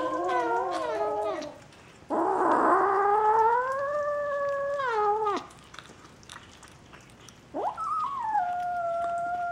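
Bengal kitten yowling in long, drawn-out calls, each dropping in pitch as it ends: one fades about a second and a half in, a second lasts about three seconds, and a third starts near the end.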